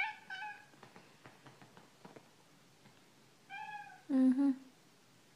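Domestic cat meowing: two short meows right at the start, faint clicks over the next couple of seconds, then another meow and two louder, lower calls about four seconds in.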